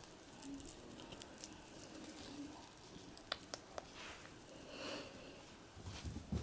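A kitten scampering and pouncing on a tile floor: faint scuffling with three sharp clicks a little after three seconds in, and a low thump near the end.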